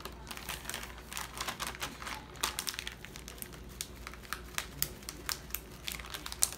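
A plastic zip-top bag and plastic wrap crinkling and crackling as they are handled, with quick sharp crackles throughout and the loudest one near the end.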